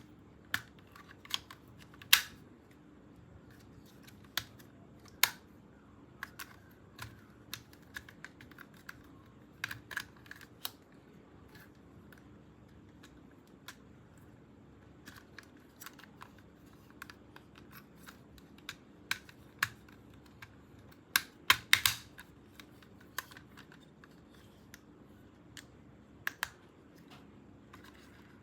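Hands handling plastic toys and packaging during an unboxing: irregular sharp plastic clicks and taps over a faint steady hum, with a quick cluster of louder clicks about three-quarters of the way through.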